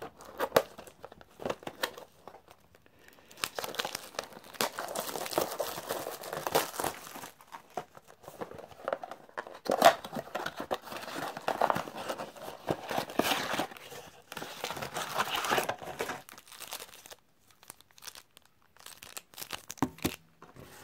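Plastic shrink-wrap crinkling and tearing as it is stripped off a trading-card blaster box, then the cardboard box being opened and its contents handled, in irregular bursts of crackling with sharp clicks.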